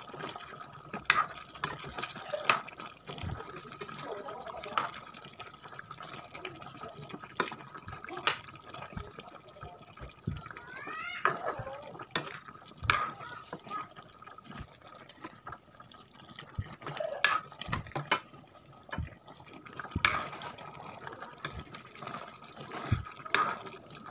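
Spatula stirring a chicken and potato curry in a wok, clicking and scraping against the pan again and again, while the thick gravy bubbles and sloshes as it simmers.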